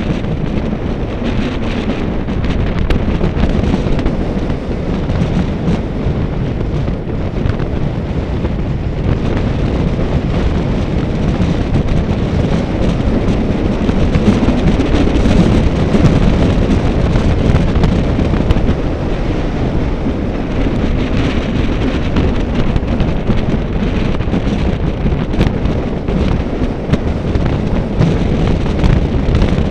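Wind buffeting the microphone: a loud, steady low rumble with fine crackling.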